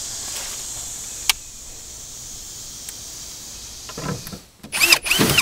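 Ryobi cordless drill/driver whirring in a few short bursts near the end, its pitch rising and falling as it spins up and stops, driving the screws of a plastic taillight lens.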